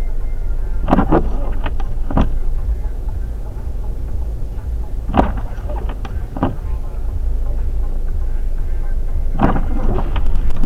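Steady low rumble of a car heard from inside the cabin while it sits in slow traffic, with a few short knocks or clicks scattered through.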